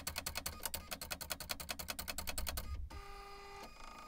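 Silhouette Cameo 3 vinyl cutter at work: a rapid, even train of clicks as its motors step the blade carriage and roller. About three seconds in, the ticking stops and gives way to a steady motor whine.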